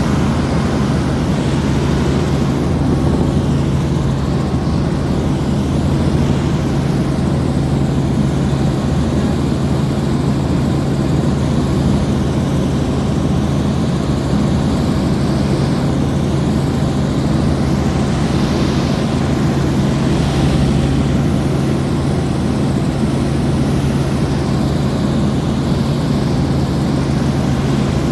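Helicopter running steadily in flight: even engine and rotor noise with a strong, steady low hum.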